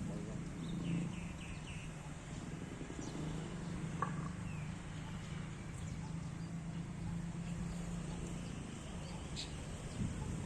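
Park ambience of songbirds chirping: a quick run of about four short high chirps about a second in, then a few scattered single calls, over a steady low hum.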